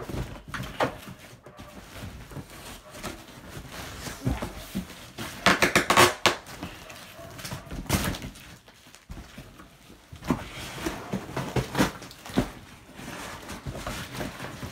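A large cardboard box being handled and opened: irregular knocks, scrapes and rustles, with a loud run of rapid sharp clatter about six seconds in.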